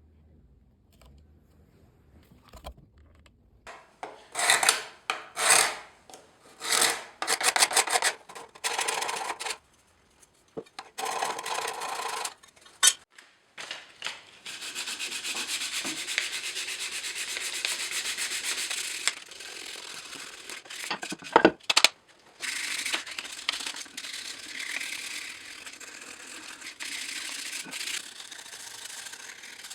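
Abrasive rubbing on wood by hand. It starts as separate strokes about a second apart, then goes over to long stretches of steady continuous rubbing, with a couple of sharp clicks between them.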